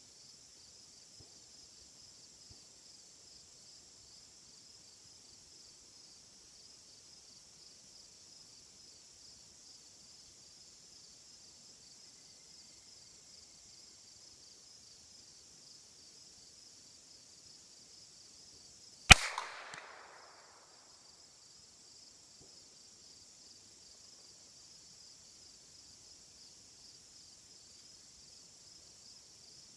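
A single gunshot about two-thirds of the way in, a sharp crack with a short echo dying away over about a second, over a steady high buzz of insects.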